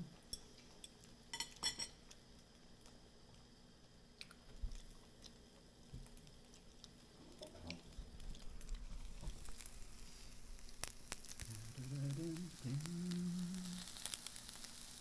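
Batter sizzling as it fries in a hot pan, the sizzle growing louder from about two-thirds of the way in. There are a few light clicks of utensils in the first two seconds, and a brief hummed voice near the end.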